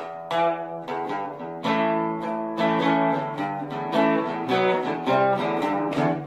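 Background music: an acoustic guitar playing a run of plucked notes and chords, each ringing out and fading.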